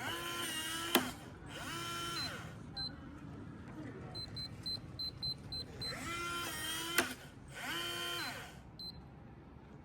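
Electronic keyless deadbolt's motor running in short whirring runs that rise and fall in pitch, each pair with a sharp click as the bolt is driven. Between the two pairs comes a quick string of short keypad beeps as the 6-digit code is entered.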